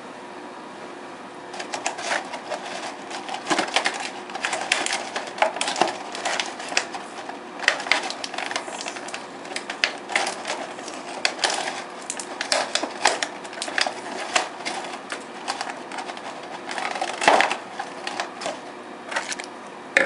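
Clear plastic packaging crinkling and clicking, with the foam insert rubbing, as a model airliner is unpacked by hand. Quiet for the first second or so, then a busy, irregular run of crackles and clicks.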